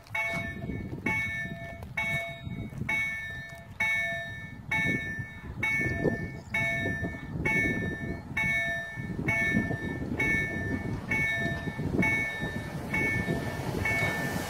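Level-crossing warning bell ringing steadily, about two rings a second, which signals a train approaching the crossing. A low rumble runs underneath as the steam train draws near.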